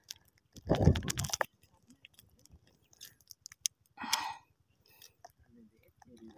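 A hand working a wet fishing net in shallow water: brief wet splashes and rustles, louder about a second in and again about four seconds in, with scattered small clicks.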